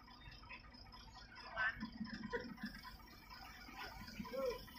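Faint, distant voices calling out a few times over low background rumble.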